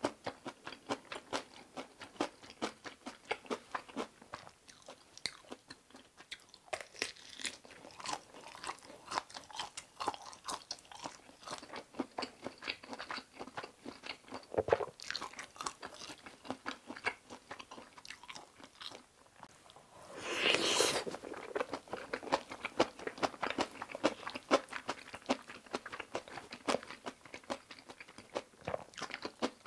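Close-miked chewing of a mouthful of kimchi cream fried rice with the mouth closed: a steady stream of small wet mouth clicks and smacks. One louder noisy sound lasting about a second comes about two-thirds of the way through.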